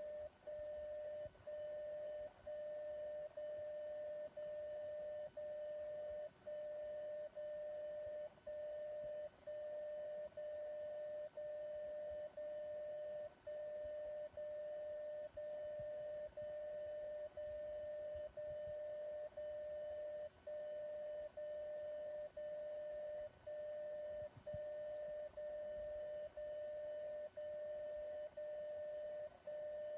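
DCF77 longwave time signal, picked up by a ferrite rod coil and a Teensy 3.6 receiver and played as a steady, mid-pitched audio tone. The tone dips briefly once a second: these are the second marks, whose length carries the time code bits.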